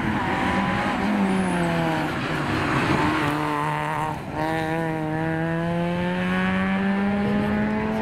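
Citroën Saxo rally car's engine at full stage pace: the note falls as the car slows into the bend, breaks off briefly for a gear change about four seconds in, then rises steadily as it accelerates away.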